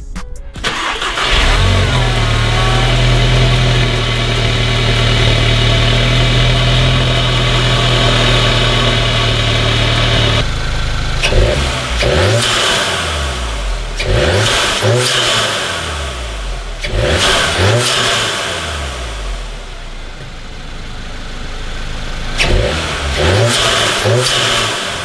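Volkswagen Mk7 GTI's turbocharged 2.0-litre four-cylinder, breathing through an open-cone Injen short ram intake, starts about half a second in and holds a steady fast idle. It is then revved in four quick blips, each rising and falling with a loud turbo and intake hiss at its peak, and drops back to idle between them.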